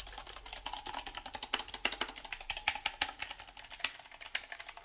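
Typing on a Sharkoon PureWriter RGB low-profile mechanical keyboard with clicky Kailh Blue switches: a rapid run of key clicks, several a second.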